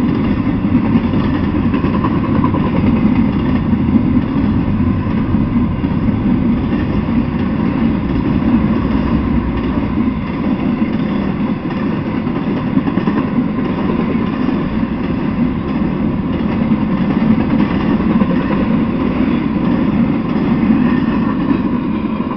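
Intermodal freight train of container-carrying well cars and trailer flatcars rolling past at speed, a steady loud rumble of steel wheels on the rails.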